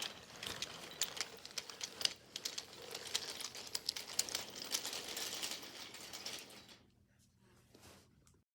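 Rapid clicking and rattling of small hard objects being handled, fading out about seven seconds in before the recording cuts off.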